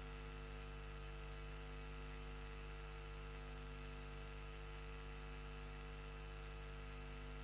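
Steady electrical mains hum and buzz with a hiss of static, unchanging throughout.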